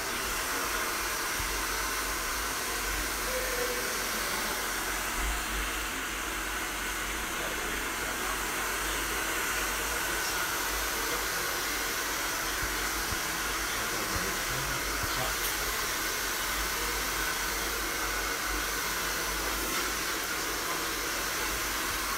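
Handheld hair dryer blowing steadily, a continuous even rush of air with no break.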